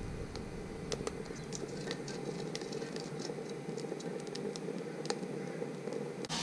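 Twigs crackling as they burn in a homemade rocket stove, with many irregular sharp clicks over the steady hum of the small 12-volt fan forcing air into it.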